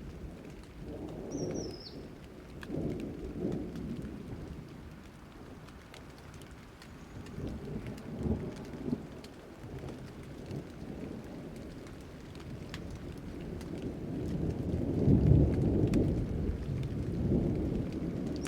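Rain falling with repeated low thunder rumbles, the loudest about fifteen seconds in. A short, high, falling chirp sounds about a second and a half in.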